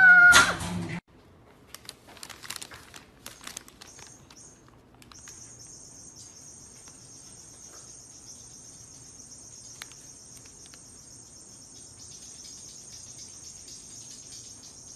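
A loud high-pitched cry cuts off within the first second. Then come a few faint scattered clicks and rustles, and from about five seconds a steady high-pitched chirring like insects holds on.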